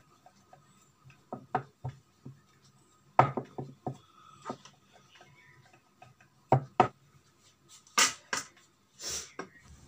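Wooden rolling pin worked over a slice of steamed bread on a wooden board: scattered light knocks and taps of wood on wood, with a few sharper knocks near the end as the pin is lifted away.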